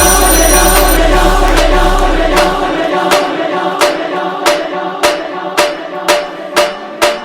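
Devotional music with group singing or chanting. About three seconds in, the bass drops out and a sharp metallic strike repeats about twice a second over a steady held tone.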